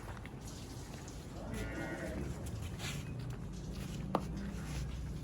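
A farm animal gives a single bleating call about one and a half seconds in, lasting about a second, over a low steady background rumble; a sharp click follows about four seconds in.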